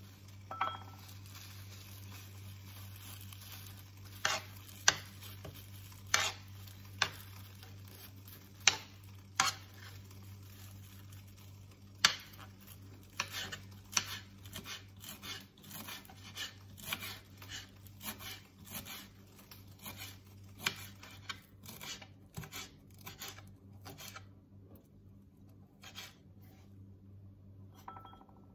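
Kitchen knife chopping fresh leafy herbs on a wooden cutting board: a few separate loud knocks at first, then a run of quicker chops from about halfway. A steady low hum runs underneath.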